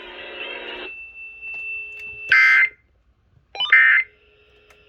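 Emergency Alert System end-of-message data bursts following a tornado warning: short, loud, buzzy digital squawks, two of them a little over a second apart, with a third starting right at the end. Before them, the broadcast fades out with a faint steady high tone.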